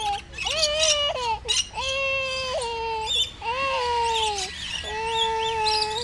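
A young child crying in about four drawn-out wails, each under a second long. Small birds chirp faintly between the wails.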